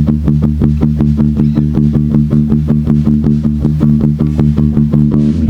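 Rock band's instrumental intro: guitar picking a fast, even run of notes, about five or six a second, over a held bass chord, which changes near the end.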